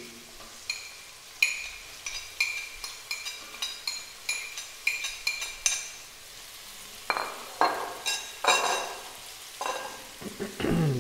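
Sliced onions frying in oil in an aluminium pot, with a metal spoon clinking against a china plate as ginger, garlic and green chillies are scraped off into the pot: a run of sharp ringing clicks for about six seconds, then a few longer scrapes.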